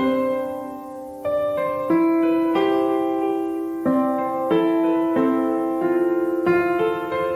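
Background piano music: slow, sustained chords with a new chord struck every half second to a second or so.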